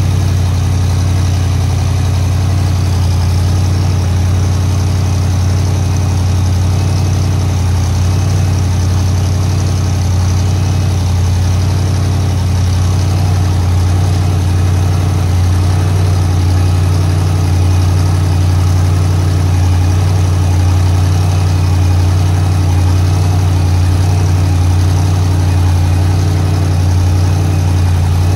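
A large engine idling steadily: a loud, deep, even drone that does not change.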